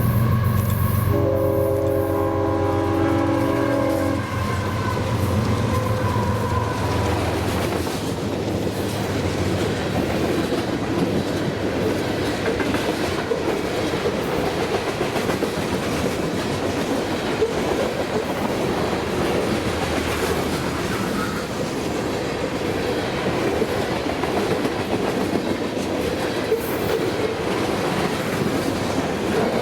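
Diesel freight train passing close by. Its multi-note air horn sounds a chord from about one to four seconds in. The locomotives' deep engine rumble fades over the first several seconds, and then the train's cars roll past with a steady clatter of wheels on rail joints.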